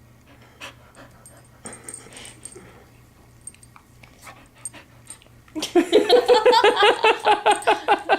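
Bernese Mountain Dog/retriever mix whining in a loud, rapid string of short pitched cries, about five a second, starting about five and a half seconds in after faint rustling. It is the dog's protest at the petting stopping.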